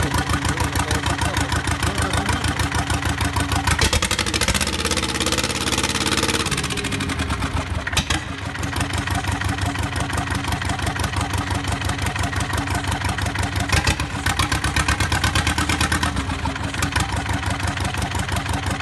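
Hinomoto S107 two-cylinder diesel engine running on a test stand with an even, rapid firing beat. Its speed shifts briefly about four seconds in and settles again by about seven seconds, with a few sharp clicks over the running.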